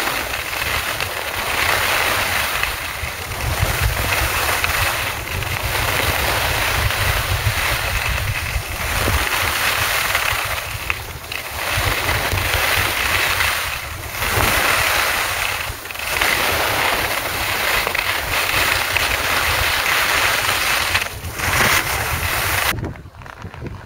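Skis hissing over snow with wind rushing and buffeting the microphone on a downhill run, the rush easing briefly every two to three seconds. It cuts off near the end.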